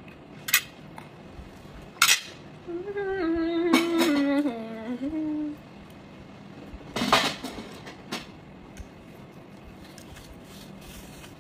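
Plates and metal cutlery clattering in several sharp clinks as dishes are cleared from a table. In the middle, a woman hums a short stepping tune for about three seconds.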